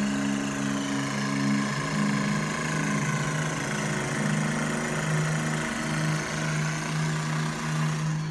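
Handheld percussion massage gun running steadily while pressed against a person's back, its motor giving a buzzing hum. The pitch drops a little about two seconds in and then holds.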